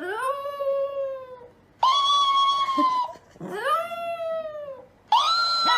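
A cat meowing: four long, drawn-out meows, each rising and then falling in pitch.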